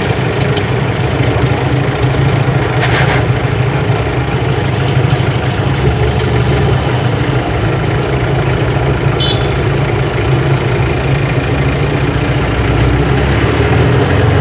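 Engine of a Gypsy off-roader running steadily as it drives along, a constant low hum.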